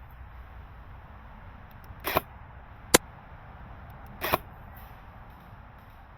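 Three airsoft gun shots: two short snapping reports with a slight double hit, about two seconds apart, and between them one sharper, louder single crack.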